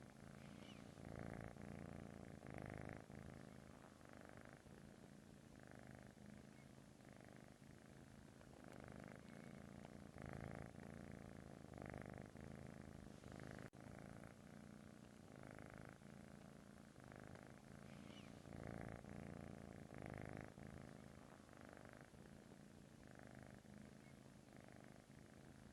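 British shorthair kitten purring, faint and continuous, swelling and easing with each breath in and out.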